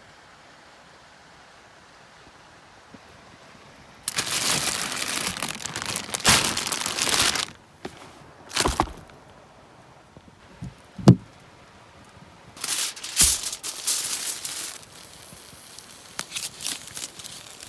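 Crinkling and rustling of wrapping being handled, in several loud bursts after a few quiet seconds, with a single sharp knock about eleven seconds in.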